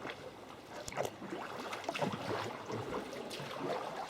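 Sea kayak in swell: irregular splashing and sloshing of water around the hull, with paddle strokes dipping in, as waves surge through a narrow gap in the rocks.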